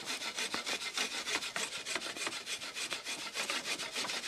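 Stone-ground flour being sifted through a hand sieve: a fast, fairly even run of dry rasping strokes.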